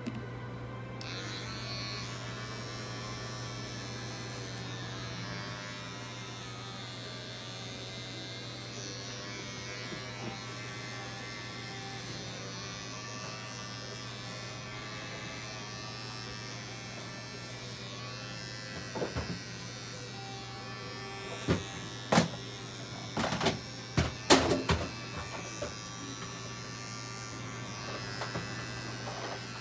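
Electric pet hair clippers buzzing steadily as they shave a dog's belly fur. A few sharp knocks and clicks come about two-thirds of the way through.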